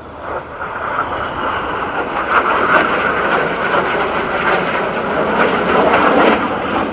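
Jet noise from the Red Arrows' BAE Hawk jets flying past in formation: a loud, steady rushing sound that swells within the first second and cuts off abruptly near the end.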